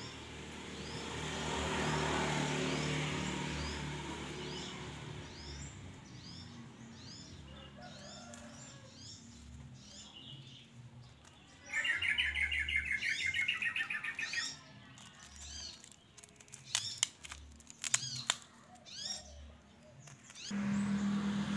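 Small birds chirping over and over, with a louder, rapid chattering trill for about three seconds midway. A few sharp clicks come near the end, and a low engine hum starts just before the end.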